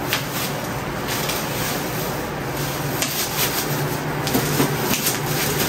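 Bubble wrap crinkling and rustling as hands unwrap a packaged item, a continuous crackle of small crinkles.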